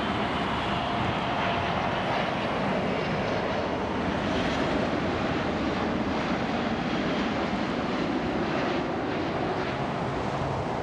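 Airbus A380-861 on final approach with gear down, its four Engine Alliance GP7200 turbofans running at approach power: a steady, even jet noise.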